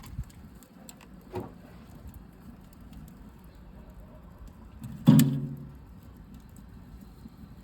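Wood fire burning in a small steel camping stove, with scattered faint crackles and clicks over a low steady background. About five seconds in comes a single loud, short clunk with a brief low ring.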